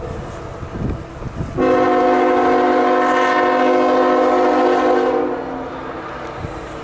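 Diesel locomotive air horn sounding one long chord-like blast of about three and a half seconds, starting about a second and a half in and cutting off near the end, over the low rumble of the moving train.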